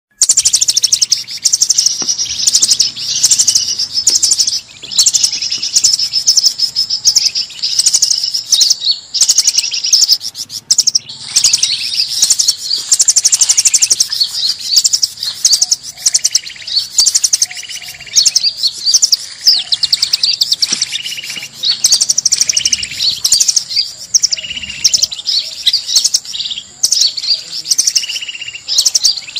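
Noisy chorus of forest birds chirping and trilling rapidly and without a break, high-pitched and loud: a bird-lure call recording.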